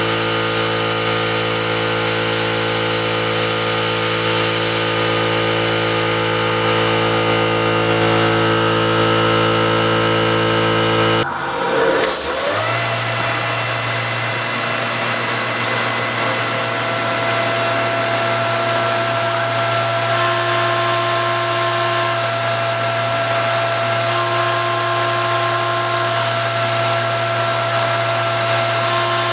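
RF45-type benchtop CNC milling machine running, its spindle and drives whining steadily while cutting a small metal part. About eleven seconds in, the sound breaks off and the spindle spins back up with a rising whine. It then runs steadily, with a higher tone that comes and goes every few seconds.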